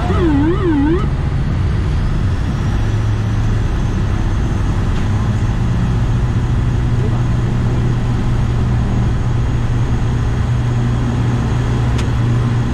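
An ATR 72-600's twin turboprop engines and propellers running at high power, heard inside the cockpit as a loud steady drone with runway rumble during the takeoff roll. A short warbling tone dips in pitch twice in the first second, and a sharp click comes near the end.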